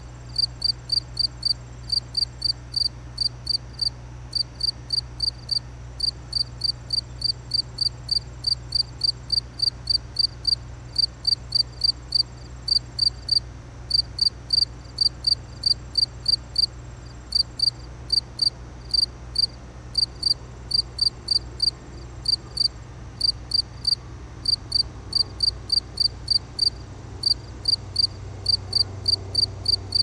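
A cricket chirping steadily: short high-pitched chirps at about three a second, with a brief pause now and then.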